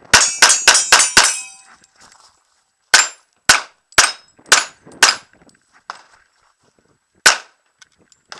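Pistol fire from a Glock 35 in .40 S&W during a timed match stage. Five shots come in a fast string in the first second and a quarter, then five more at about two a second, then a single shot near the end.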